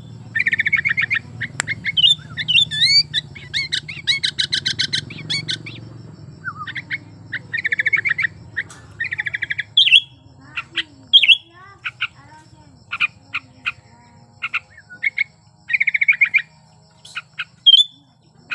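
Sooty-headed bulbul (kutilang) singing vigorously: bursts of rapid, stuttering chirps alternate with sharp single whistled calls and short pauses. It is sold as the song of a bird in breeding condition.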